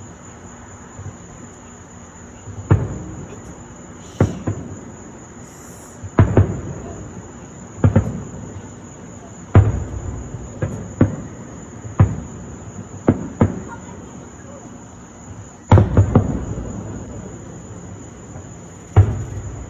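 Fireworks shells bursting overhead: about a dozen booms with rumbling, echoing tails, several coming in quick pairs or triplets. Under them runs a steady high-pitched chirr of insects.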